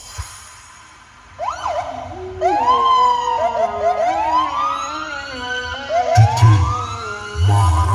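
Siren-like electronic sweeps, several overlapping tones rising and falling, played loud through a carnival sound system during a break in the dance track. Heavy bass beats come back in about six seconds in.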